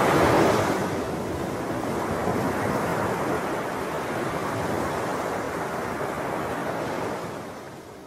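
Ocean surf: a wave breaking and washing up the shore, loudest in the first half-second, then a steady hiss of wash that fades away near the end.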